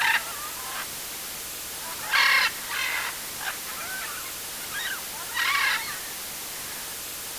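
Woodland ambience: a bird's harsh calls, four of them a couple of seconds apart, with fainter chirps in between, over a steady hiss.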